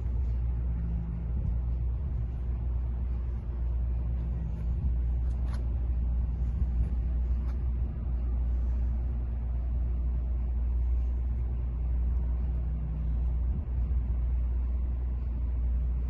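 Steady low rumble throughout, with a faint tick about five and a half seconds in.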